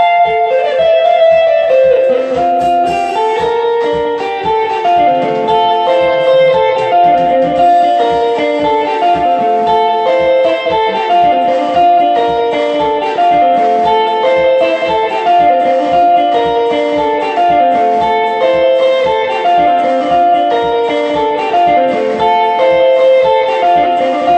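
Electric guitar playing a fast picked soukous sebene lead: quick runs of bright single notes in repeating descending phrases about every two seconds.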